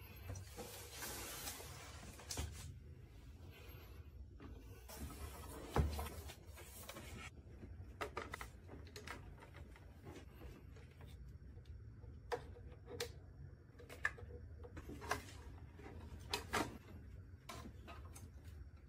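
Hands working on the all-in-one PC during disassembly: scattered sharp clicks and taps of plastic and metal parts, with two longer scraping or rustling stretches in the first few seconds.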